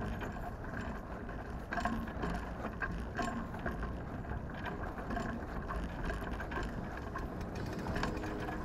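Water rushing and splashing along a sailboat's hull as it sails through a light chop, with wind noise and a few scattered sharp knocks.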